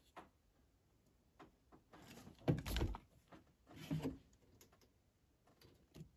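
Handling noise from a cordless work light being picked up and moved over the engine: a few light clicks, then a louder scraping clunk about two and a half seconds in and another about a second later.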